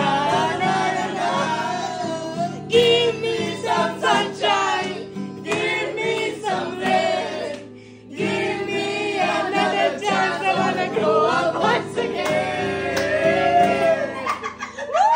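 Acoustic guitar strummed in a steady rhythm while several voices sing along. The music breaks off for a moment about eight seconds in, then picks up again.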